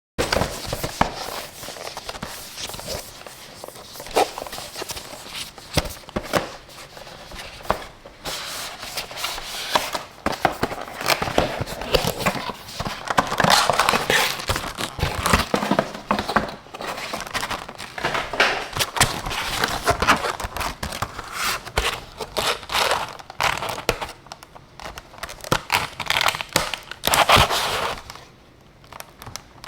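Close-up handling of plastic packaging and small plastic parts: irregular crinkling and rustling with many small clicks, fairly loud and continuous.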